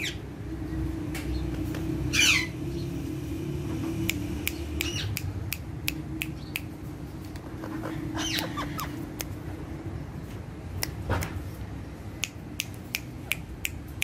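Indian ringneck parakeets squawking now and then: a short harsh call falling in pitch about two seconds in, and a few more calls around eight seconds in. Scattered sharp clicks come through, more of them near the end, over a steady low hum.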